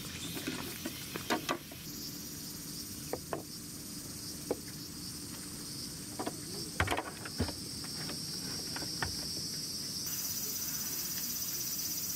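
Insects chirring steadily in the background, a high even hiss that grows louder near the end, with scattered sharp knocks and clicks of small plastic balls striking the plastic toy garage and a wooden bench.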